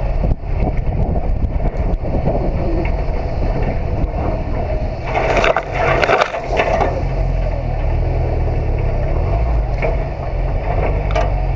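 Wind and road rumble on a car-roof-mounted action camera. About five seconds in, leafy tree branches brush and crash across the camera and roof for about two seconds.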